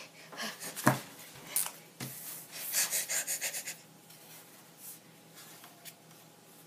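Rustling and rubbing noises close to the microphone, with two knocks about one and two seconds in and a quick run of scratchy strokes around three seconds in, then fading to low room noise.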